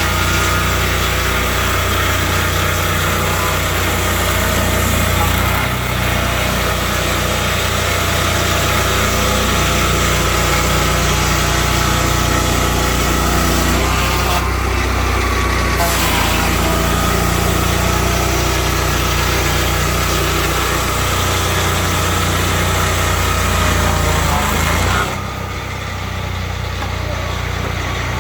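Swingblade circular sawmill's small engine running steadily under power, with a dense high hiss from the saw. The sound drops in level near the end.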